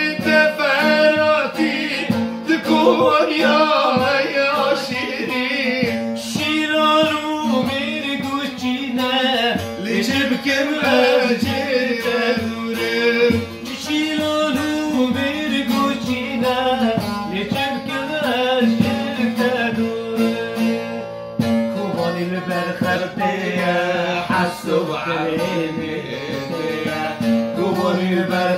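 Male voice singing to a long-necked saz (bağlama), its plucked strings strumming and picking a melody under the song.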